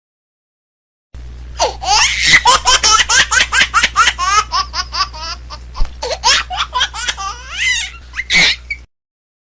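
Laughter sound effect: a long fit of high-pitched laughter in rapid pulses, a few per second. It starts about a second in and stops suddenly shortly before the end, over a low steady hum.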